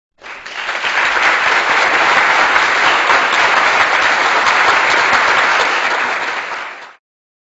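Canned applause sound effect: a crowd clapping, fading in and fading out again near the end, laid over an otherwise silent soundtrack.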